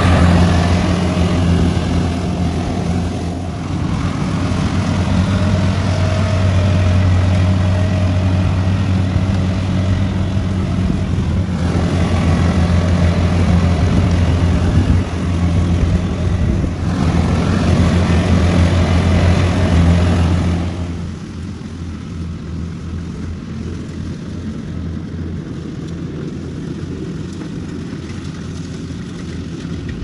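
Kubota crawler rice combine harvester's diesel engine running steadily under load as it harvests, a deep, even drone. About two-thirds of the way through it becomes noticeably quieter.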